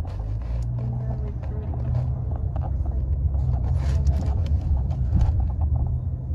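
Low, steady rumble of a car's engine and tyres heard from inside the cabin while riding, with faint scattered clicks and rattles.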